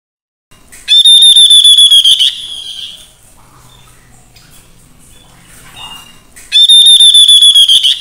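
Caged tepus babbler calling twice. Each call is a rapid pulsed trill of about a second and a half on one high, slightly falling note, with the two calls about five and a half seconds apart.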